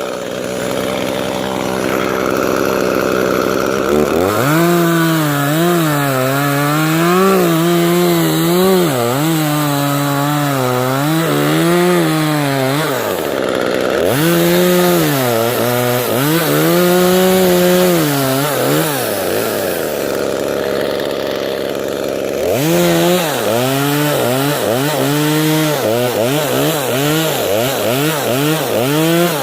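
Two-stroke chainsaw cutting through tree wood, its engine pitch rising and sagging under load, easing off to idle twice between cuts.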